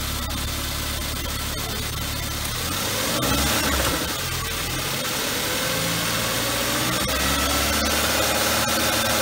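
BMW 1 Series (E81/E87) engine running cold, fresh from new hydraulic lifters, revved briefly in the middle and then settling back to a steady idle. It runs cleanly with no lifter tick.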